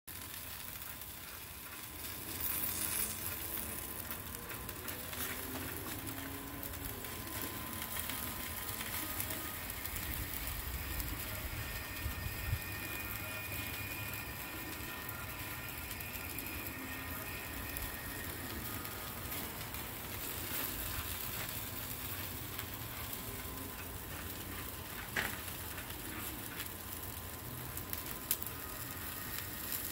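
Chicken wings in a rotisserie basket sizzling over hot charcoal, a steady crackle with scattered clicks and a few sharper pops, under a faint steady tone.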